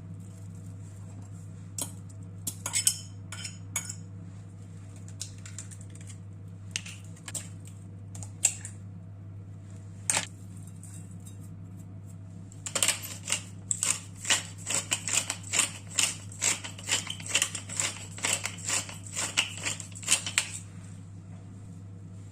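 Kitchen utensils clinking and tapping against dishes: scattered knocks at first, then about halfway through a quick run of clicks lasting several seconds, over a steady low hum.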